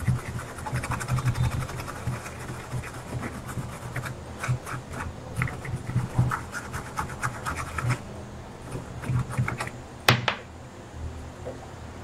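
Toothbrush bristles scrubbing across a washing-machine circuit board in quick, irregular scratchy strokes. A single sharp knock comes about ten seconds in.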